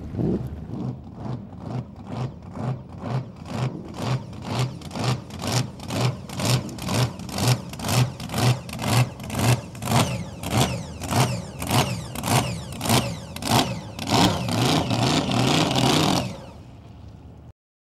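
Supercharged gasoline engine of a blown flatbottom drag boat running under load and surging rhythmically, about two surges a second: blower surge. Near the end it steadies into a continuous run, then cuts off sharply.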